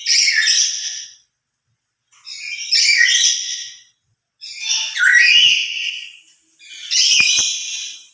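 Black-capped lory calling loudly on its own: four shrill, harsh calls, each about a second long, roughly two seconds apart.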